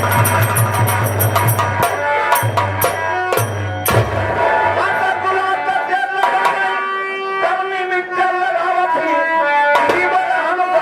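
Stage music: tabla and drums play a fast beat for about the first four seconds. The drums then drop out under a held, sustained melody.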